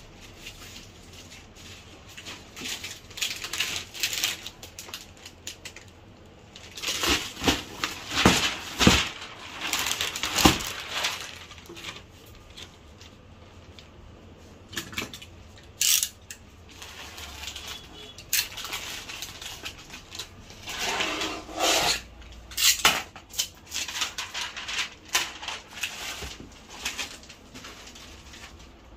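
Clear plastic shrink-wrap film crinkling and rustling in irregular bursts as it is pulled and smoothed over a large glass-fronted picture frame, with a few sharp knocks.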